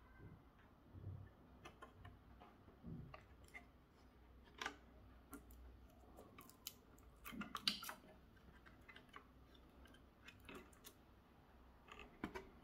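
Faint, scattered clicks and taps of a motherboard being handled by hand on a table, fingers knocking against its plastic I/O shroud and circuit board. A quick run of louder clicks comes a little past halfway, and a few more near the end.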